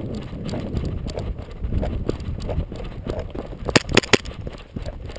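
Footsteps of a person walking, with irregular low thumps and knocks as they go. About four seconds in comes a quick run of three or four sharp clicks.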